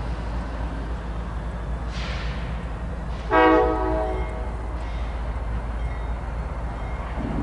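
Diesel freight locomotive with a low steady rumble; about three seconds in, one short blast of its air horn, a multi-note chord lasting under a second and the loudest sound. A brief hiss comes just before the horn.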